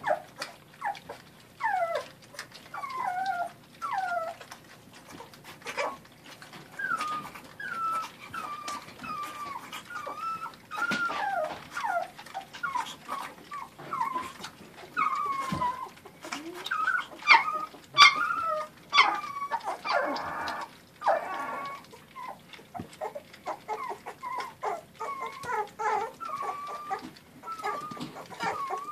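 A litter of young gundog puppies whining and whimpering: many short, high, falling cries, one after another, with a brief harsher yelp about two-thirds of the way through.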